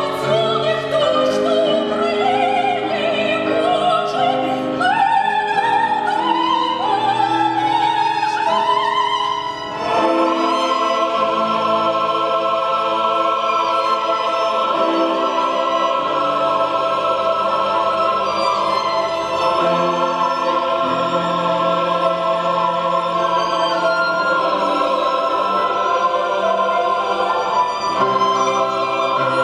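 Live classical performance by a choir with solo violin. Over the first ten seconds a wavering solo melody climbs higher, then from about ten seconds the choir holds long sustained chords.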